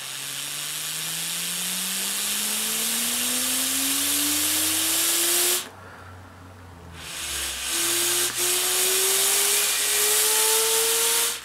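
Hiss of breath blown hard across a small levitating piece in a liquid-nitrogen-cooled superconductor-and-magnet setup to spin it, with a tone that climbs steadily in pitch as it spins faster. The blowing breaks off for about two seconds midway, then resumes, and the tone climbs again.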